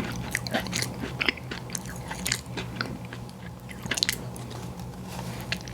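Close-miked eating: a person chewing and biting into ice cream and cookie, with many small wet, crackly mouth clicks and a few sharper crunches, over a faint steady low hum.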